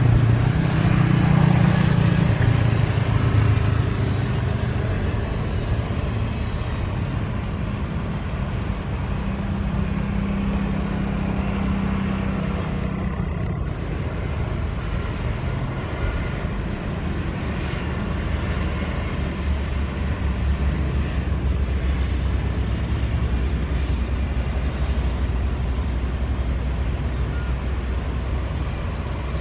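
Steady low engine rumble, loudest in the first few seconds, with a deeper steady hum setting in about two-thirds of the way through.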